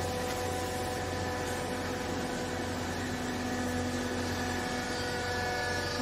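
Vertical hydraulic clothing baler's electric pump unit running with a steady hum as the ram presses down on the load. A lower tone joins about two seconds in.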